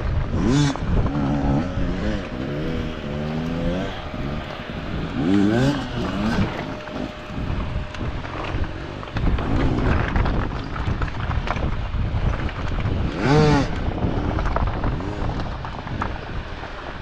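Off-road dirt bike engines revving up and down again and again, with the loudest rev about 13 seconds in.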